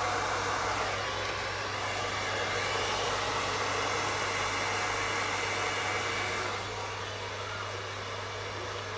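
Hair dryer running steadily, its airflow blowing wet acrylic paint across a canvas. It becomes quieter about two-thirds of the way through.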